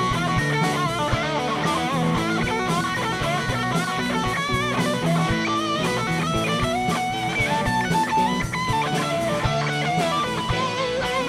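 Rock band playing live: electric guitars, bass and a drum kit, with a lead guitar line of wavering, bending notes running through.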